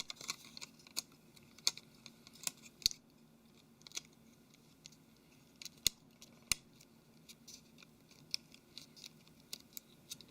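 Sporadic light clicks and taps of a smartphone's small parts being handled and pressed during reassembly, irregular and quiet, with a few sharper clicks about three, six and six and a half seconds in.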